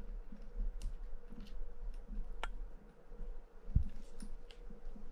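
Small metal parts of a Penn International 20 fishing reel clicking and tapping as they are handled and worked loose by hand, with a sharper click about two and a half seconds in and a dull knock near four seconds. A faint steady hum sits underneath.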